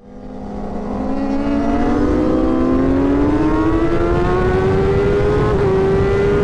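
Sport motorcycle engine at high revs on a racetrack, its pitch climbing steadily as it pulls hard, with brief small dips near the end as it shifts up, over heavy wind rush on the onboard camera.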